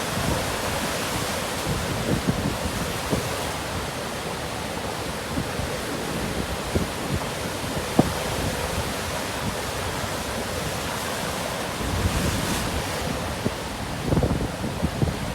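Rough surf breaking in a typhoon swell, with a strong onshore wind buffeting the microphone in uneven low gusts, heavier near the end.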